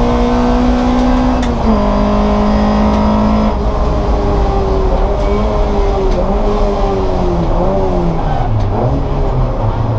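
Race car engine running hard: it revs up and shifts up suddenly about two seconds in. The revs then fall with a few short blips as it slows, before picking up again near the end.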